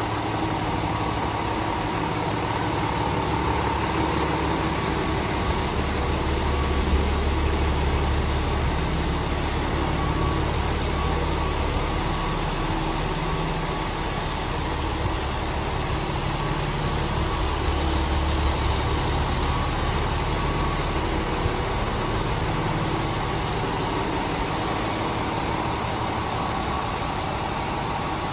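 Scania R450 tractor unit's 13-litre straight-six turbo diesel idling steadily. Its low rumble grows louder twice for a couple of seconds.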